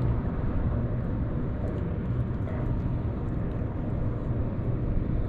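Steady low outdoor rumble with no single clear source, with a few faint clicks.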